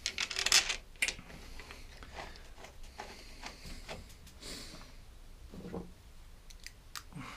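Hands handling and fitting small parts on a lawnmower engine. A burst of rustling and scraping comes in the first second, followed by scattered light clicks and taps.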